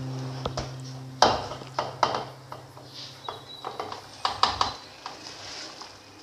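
Soaked rice sliding off a steel tray into a pot of boiling water, with sharp knocks and scrapes of the metal tray against the pot rim, the loudest about a second in and another cluster around four seconds.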